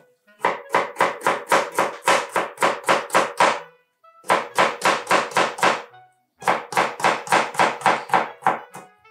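Kitchen knife slicing a raw artichoke heart on a plastic cutting board: fast, even chopping strokes, about five a second, in three runs with short pauses about 4 and 6 seconds in.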